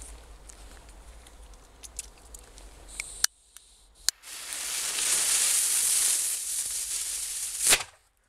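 A small Nico China firecracker with a Bo Peep cover being lit. A lighter clicks a couple of times, the fuse hisses for about three seconds, and the cracker goes off with one sharp bang near the end.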